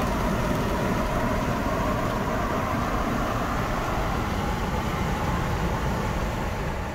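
Steady wind rush and road noise inside a camper van driving at highway speed, with air blowing in through the open side window.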